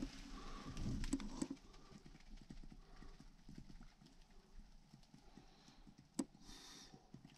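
A caver moving over cave rock: irregular scuffing steps and clothing rustle, louder in the first second or so. There is a sharp knock about six seconds in, then a short hiss.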